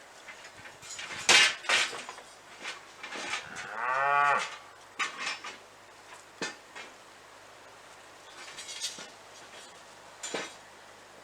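Metal fencing tools clanking several times, the loudest just over a second in. Around the middle a cow moos once, a single call of about a second.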